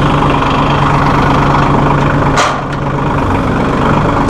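Massey Ferguson 1740E compact tractor's 1.5 L Shibaura diesel engine running steadily, with one short sharp click a little past halfway, after which the engine sound drops slightly.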